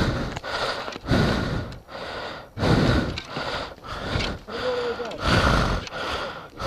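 A person breathing hard, close up: a quick, irregular run of heavy breaths in and out.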